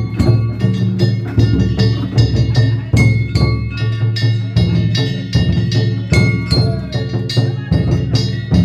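Danjiri festival music: a big taiko drum and struck metal gongs beaten in a fast, steady rhythm, the gongs ringing over the drum.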